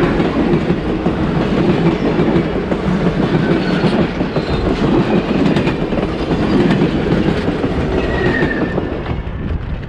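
Passenger train cars rolling past at speed, wheels clattering on the rails, the sound fading away near the end.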